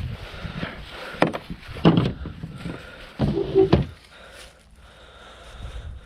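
A few sharp knocks and clacks of parts and tools being handled while the van's front end is taken apart: about a second in, again near two seconds, and a quick cluster a little past three seconds.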